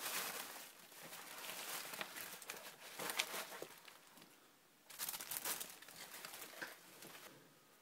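Faint rustling and crinkling of handmade paper tags and their packaging being handled and moved aside, with small taps and clicks, pausing briefly about halfway through.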